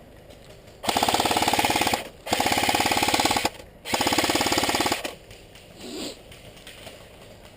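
Airsoft rifle firing full-auto in three bursts of about a second each, a fast even rattle of shots.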